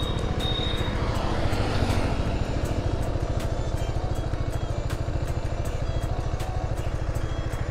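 KTM Duke motorcycle's single-cylinder engine idling steadily, its even low pulsing not rising or falling.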